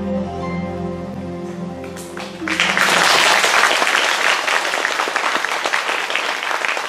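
Music with held notes ends about a third of the way in, and an audience breaks into applause that goes on, louder than the music was.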